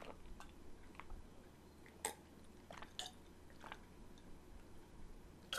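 A person gulping down a glass of drink. The swallows are faint, about one a second.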